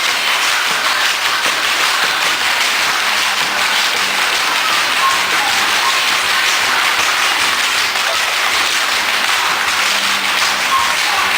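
A group of people applauding and clapping steadily, right after a sung number ends.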